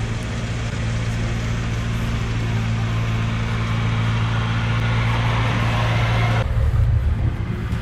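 Off-road vehicle engine running steadily with a low hum and broad road or tyre noise. About six and a half seconds in, the higher noise drops away suddenly, leaving a rougher low rumble.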